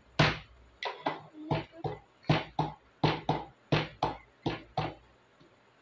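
Rapid palm slaps on a clear cover over an egg on a wooden table, about three a second and uneven, as two players take turns. The slapping stops about five seconds in.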